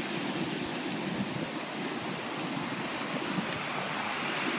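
Waves breaking on a sandy beach in a steady wash of surf from a rough, churned-up sea.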